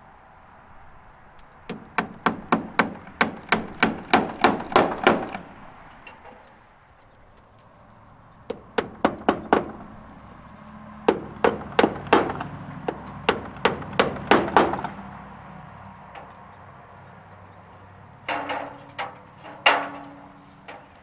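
Hammer striking nails into the wooden trim boards of a barn gable, in quick runs of about four blows a second with pauses between. A few slower blows near the end leave a short ring.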